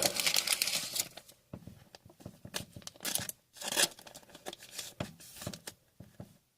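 Paper-and-foil rustling and tearing as hockey trading-card packs are torn open and the cards handled, in a run of irregular short scrapes and crinkles that is busiest in the first second and thins out toward the end.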